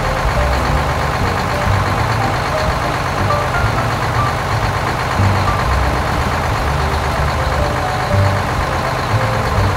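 Heavy dump truck engine running steadily as the truck drives along, a low rumble under a dense noisy wash.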